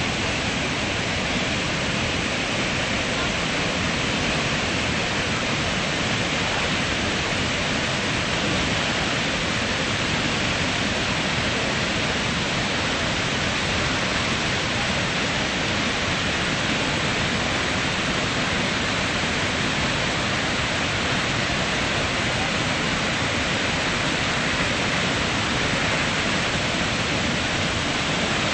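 The Iguazú Falls' many cascades pouring down, a steady, even rush of falling water.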